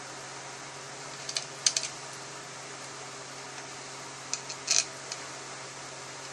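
Small metal clinks as steel bolts are handled and set into a Toyota A750E transmission's valve body, in two brief clusters about a second and a half and four and a half seconds in, over a steady background hum.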